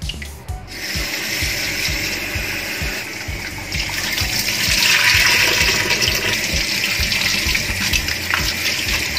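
Kitchen tap running and splashing into a bowl and a stainless steel sink while food is rinsed by hand under the stream. The water comes on about a second in and splashes hardest around the middle. A steady music beat plays underneath.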